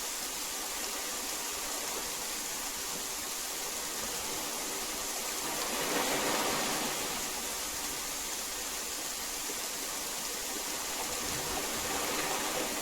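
Heavy rain falling in a steady hiss, swelling briefly about halfway through.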